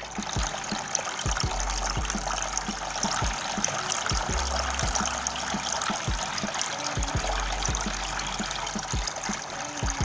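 Small tabletop fountain running: three thin streams of water falling from spouts into a shallow basin, a steady trickling splash. Background music with a low beat plays underneath.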